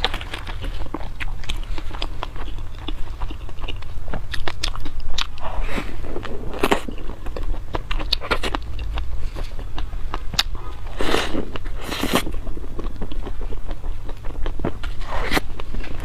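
Close-miked eating: a string of crisp bites and wet chewing clicks, with a few longer, noisier mouthfuls about six, eleven, twelve and fifteen seconds in.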